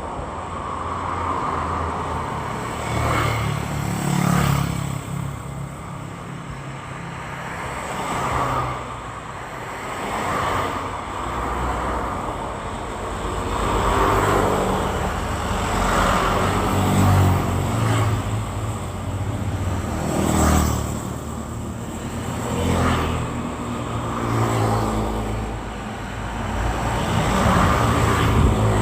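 Road traffic: a steady stream of cars and motorbikes passing, swelling and fading every couple of seconds, with engine notes rising and falling as they go by.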